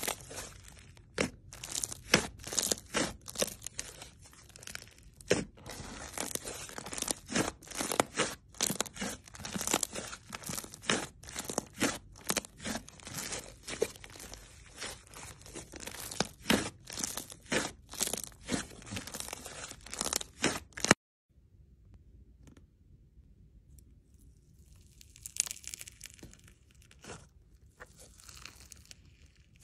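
Hands squeezing and pressing a pale, textured slime, making dense crackling and popping clicks. About two-thirds through the sound cuts off suddenly, followed by fainter, softer crunching as fingers dig into a pink slime in its tub.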